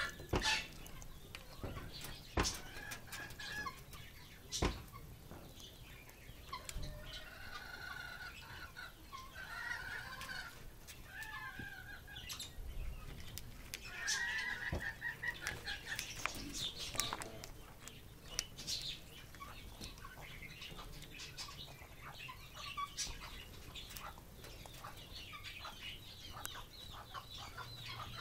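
Two Amazon parrots feeding at a dish of fruit and vegetables, with scattered sharp beak clicks and knocks on the food and bowl. Soft, low clucking chatter comes in stretches, longest from about seven to eleven seconds in and again around fourteen seconds.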